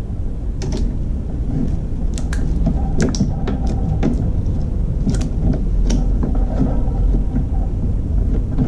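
Handling noise of the Synology DS416 NAS's black plastic front cover being lifted and fitted over the drive bays: scattered sharp plastic clicks and taps, bunched in the first six seconds, over a steady low rumble.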